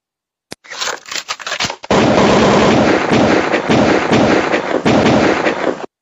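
A single click, then a ragged run of sharp cracks, swelling at about two seconds into dense, continuous rapid bangs and crackling that cut off abruptly just before the end.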